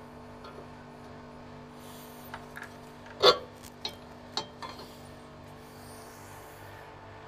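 A metal motor-mount bracket being worked against an electric motor by hand: one sharp knock about three seconds in, then a few lighter clicks, over a steady hum.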